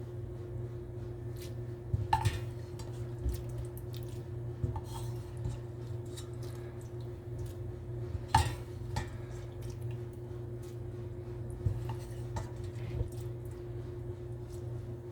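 Kitchenware knocking and clinking: scattered sharp knocks of a utensil against pots and dishes, loudest about two seconds in and about eight seconds in. A steady low hum runs underneath.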